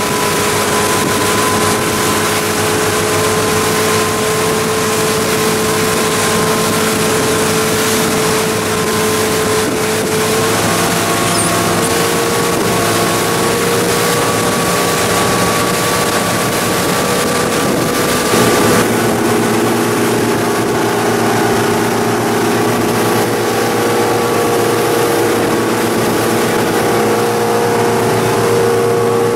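Sportfishing boat's engines running steadily at cruising speed, with the rush of the churning wake and wind over the deck; the engine pitch rises slightly about ten seconds in.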